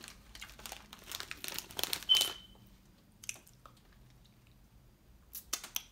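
Chip bag crinkling and rustling as a hand digs chips out, dense crackles for about two seconds and loudest near the end of that burst, then a quieter stretch with a few more crackles near the end.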